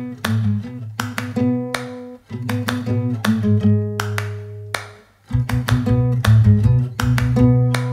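Background music led by plucked guitar with a bass line, breaking off briefly twice, then coming back fuller and louder about five seconds in.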